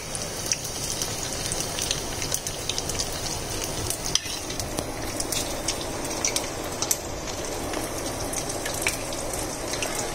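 Batter-coated paneer cubes deep-frying in hot oil in a steel kadai: a steady sizzle with scattered small pops and crackles.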